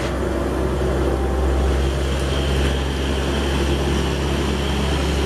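Hino box truck's diesel engine running with a steady low drone as the truck drives along a wet road, with a steady hiss of tyres on the wet surface above it.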